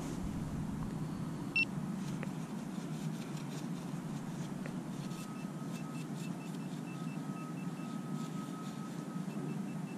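Garrett Pro-Pointer pinpointer giving a single short beep about a second and a half in, then, from about five seconds in, a run of pulsed beeps at roughly three to four a second, which pauses and starts again near the end: it is signalling a buried metal target that the detectorist takes for a quarter. A fainter steady lower tone sounds alongside the pulsed beeps, over a low steady background rumble.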